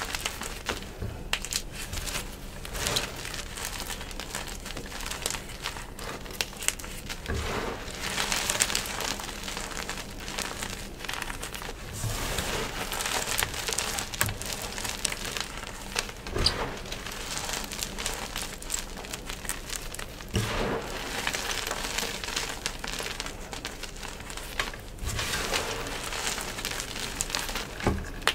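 Crushed yellow gym chalk pebbles and powder squeezed and rubbed between bare hands: a continuous soft crunching and crackling, with a few sharper crunches here and there.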